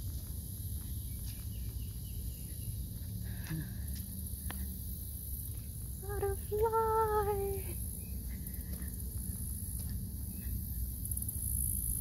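A steady, high-pitched chorus of insects over a low rumble, with a woman's voice exclaiming once about halfway through.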